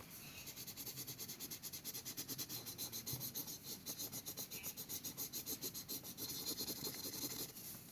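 Colouring in on paper: rapid back-and-forth scribbling strokes of a pen or marker rubbing across the sheet, several strokes a second.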